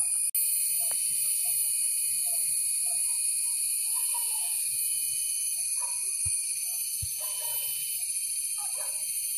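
A steady, loud, high-pitched drone of forest insects in chorus, with faint scattered short sounds underneath.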